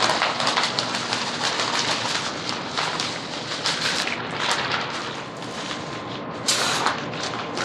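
Plastic bag crinkling and rustling as oyster shell flour is poured out onto a pile of potting-soil mix, then a shovel scraping through the gritty mix of peat, pumice and rice hulls near the end.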